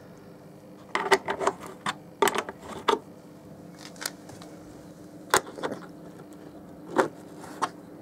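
Sharp metallic clicks and clinks, scattered irregularly with a quick cluster in the first few seconds and single ones later, as a 10 mm spanner is fitted onto and worked against a tail-light securing bolt.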